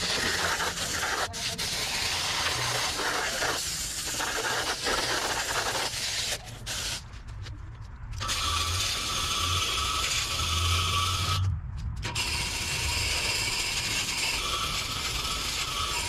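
Water spraying hard from a hose spray gun onto a heat pump's outdoor unit and its metal grille panels during cleaning, stopping briefly about three times as the trigger is let go.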